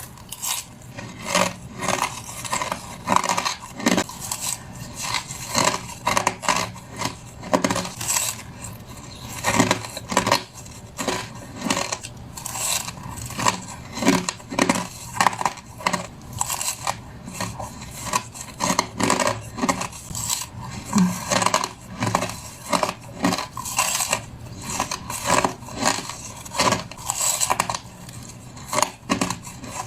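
A person biting and crunching crushed ice, with rapid, irregular crisp crunches several times a second.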